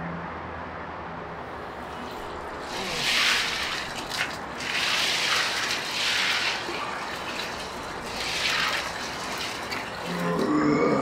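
A man sitting in an ice-water bath gives several short, hissing breaths and grunts against the cold. Near the end, water splashes as he stands up out of the ice-filled tub.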